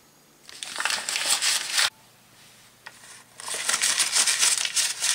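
A sheet of paper being crumpled, in two bursts of crinkling: one from about half a second in to just before two seconds, and a longer one starting about three and a half seconds in.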